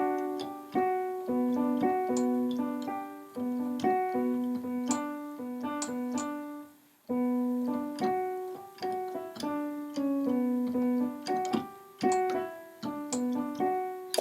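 Background music: a keyboard tune played on a piano sound, one note at a time, with a brief break about halfway through.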